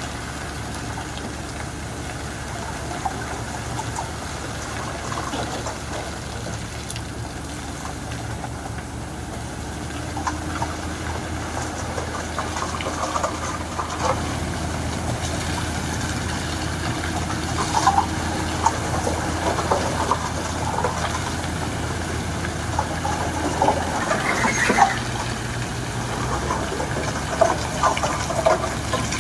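Road-construction machinery running, a steady low engine drone, with scattered knocks and clatter of work from about ten seconds in.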